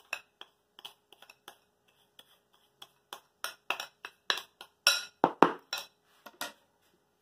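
Sugar being poured from a plastic bag into a plastic mixing bowl of flour, heard as a run of irregular light clicks and knocks of plastic against the bowl. The knocks are sparse at first and become louder and closer together from about three seconds in.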